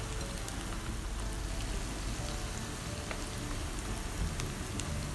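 Marinated chicken leg pieces frying in hot coconut oil on a low flame: a steady crackling sizzle of bubbling oil.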